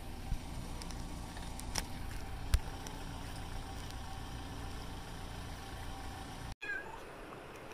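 A steady low rumble, like a distant engine running, with a few sharp clicks in the first three seconds; it drops out briefly about six and a half seconds in and comes back quieter.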